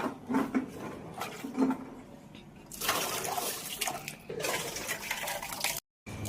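Scattered clinks of kitchen utensils, then liquid pouring or splashing in a pot from about three seconds in, with one short break, stopping abruptly near the end.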